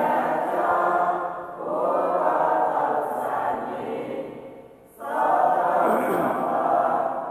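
A group of voices chanting Buddhist Pali verses in unison, a steady sung recitation with a short break for breath about five seconds in.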